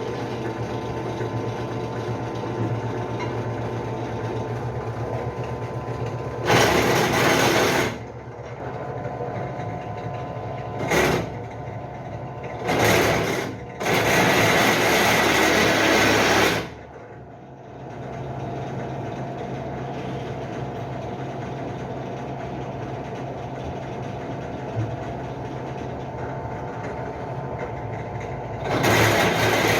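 Benchtop drill press motor running steadily while a 9.5 mm bit is fed into 6 mm steel plate, with four loud bursts of grinding and rattling as the bit cuts, the longest about two and a half seconds; the motor hum dips briefly after the last burst.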